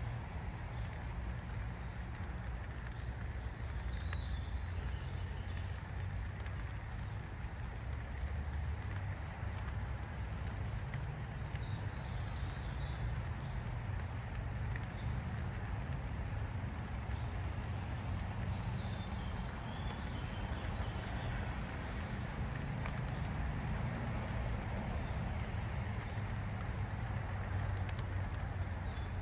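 Outdoor ambience: a steady low rumble with faint short high chirps recurring about once a second.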